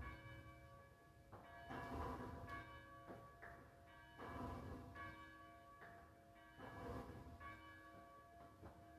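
A church bell tolling slowly as a memorial toll, struck about every two and a half seconds, each stroke ringing on and fading into the next. The bell is faint.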